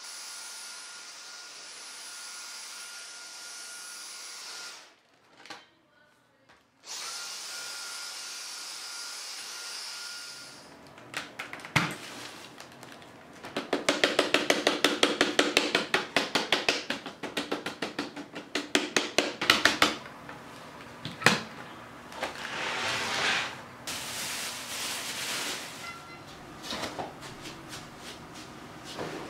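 Dyson cordless stick vacuum running with a steady high whine. It cuts out for about two seconds, starts again, and stops after about ten seconds. A long stretch of fast rattling clicks and knocks follows.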